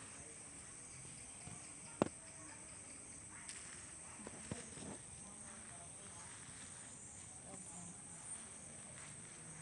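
Crickets chirring steadily at a high pitch, with one sharp click about two seconds in and a few faint knocks a little later.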